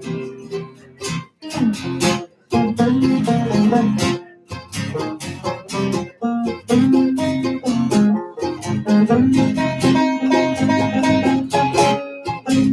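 Acoustic guitar, five-string banjo and mandolin playing together in a folk-pop song, a passage with no lyrics, with a few brief stops in the playing in the first few seconds.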